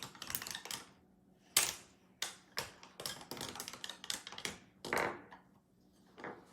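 Hard plastic toy pieces clicking and clattering as they are handled and knocked together: a run of sharp, irregular clicks with short pauses.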